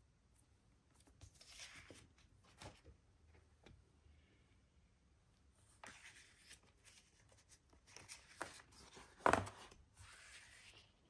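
Sheets of paper rustling and sliding as they are handled and laid over a plastic LED light board, in several short bursts, with one sharper knock about nine seconds in.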